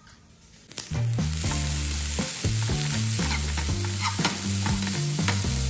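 Ground beef sizzling in a nonstick frying pan on a gas hob, stirred and scraped with a fork. The sizzle starts suddenly about a second in and then holds steady.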